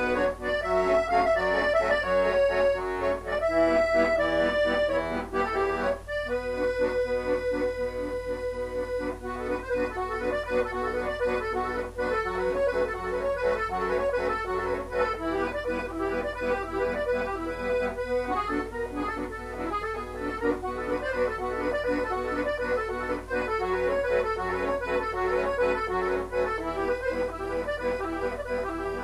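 Piano accordion played solo: a waltz tune over held chords, with a short break about six seconds in.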